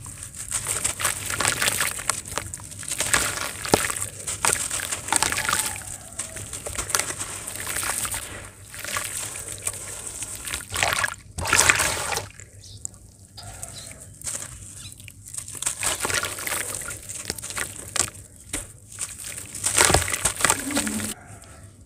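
Wet, gritty sand chunks crushed and crumbling between hands, with crackling grit and the splash and patter of pieces and grains dropping into a basin of water. It comes in bursts with a few short lulls.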